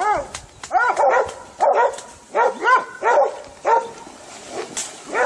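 Hunting dogs barking at a wild boar they have bayed, in quick clusters of short barks that rise and fall in pitch. The barking eases off after about four seconds, with one more bark near the end.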